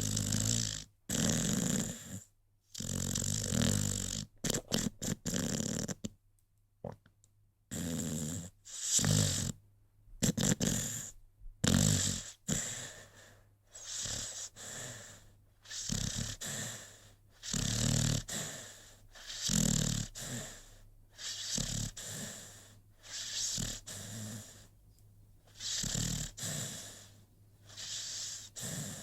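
American Pit Bull Terrier snoring in its sleep: a regular run of snoring breaths, about one every second and a half.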